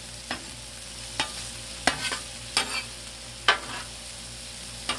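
Metal spatula scraping and tapping on a Blackstone griddle's steel cooktop, about seven sharp, irregular clicks, over a steady low sizzle of sliced smoked sausage and chopped celery frying.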